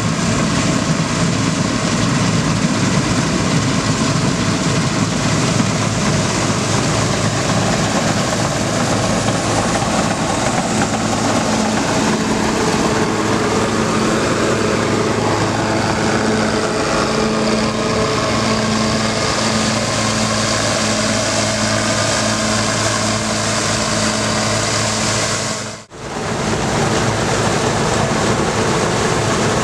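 Bizon Z056 Super combine harvester running while harvesting grain: its six-cylinder diesel engine and threshing machinery make a loud, steady hum. The sound drops out briefly near the end.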